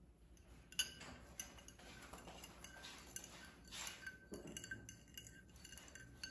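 Metal spoon clinking and scraping against a ceramic bowl as a small child stirs beaten egg and milk: faint, irregular clinks starting about a second in.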